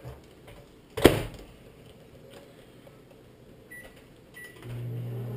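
A sharp knock about a second in, then two short beeps from the LG LMVM1935SB over-the-range microwave's newly replaced keypad as buttons are pressed. The microwave then starts running with a steady low hum near the end: the new keypad is responding.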